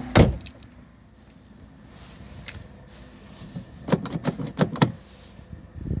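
A VW Golf's car door slammed shut: one loud thud just after the start. About four seconds in comes a quick run of sharp clicks and knocks.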